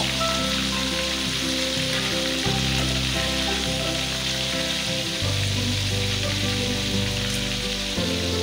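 Mackerel steaks deep-frying in hot oil in a wok: a steady, even sizzle with bubbling.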